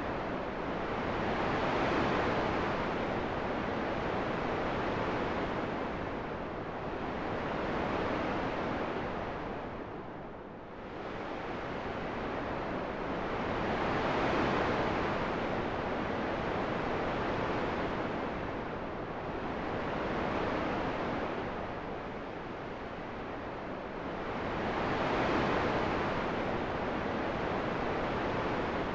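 Wind noise, a continuous rushing hiss that swells and eases in slow gusts, with a lull about ten seconds in.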